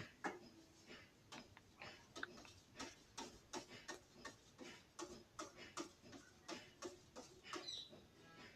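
Faint, irregular sticky clicks and small smacks, about two to three a second, of hands squeezing and handling homemade flour slime.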